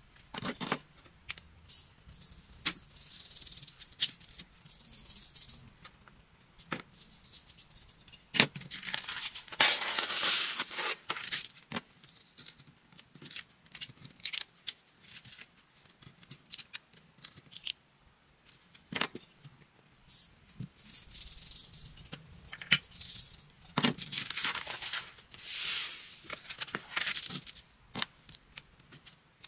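Dry coloured craft sand poured and shaken over a sticky sand-art sheet, in several rustling, hissing stretches of a second or two. Between them come sharp clicks and scrapes of tweezers on the paper as the backing is picked off.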